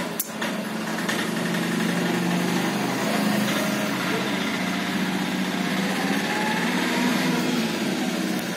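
A small engine running steadily, with one sharp click about a quarter second in.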